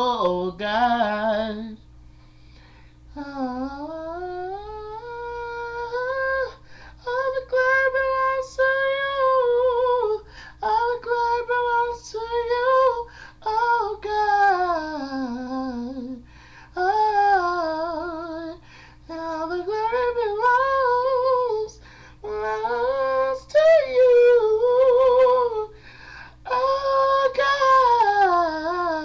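A man singing solo: long held notes and melodic runs that glide up and down, with brief breaths between phrases and no clear words.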